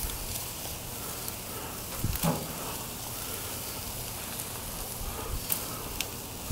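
Steaks and sausages sizzling on a gas grill: a steady crackling hiss, with a light knock about two seconds in.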